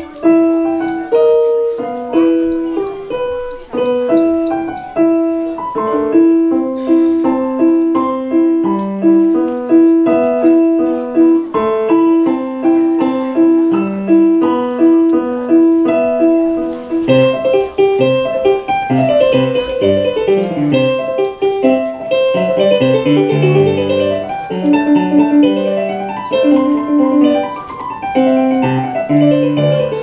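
Electronic keyboard played with a piano sound: a simple melody in evenly paced single notes, about two a second, then just over halfway a different, faster piece with rippling runs up and down over low bass notes.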